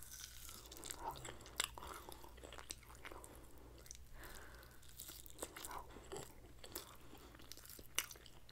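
Close-up chewing of a mouthful of grilled kabob meat and vegetables: soft wet mouth sounds with scattered sharp clicks.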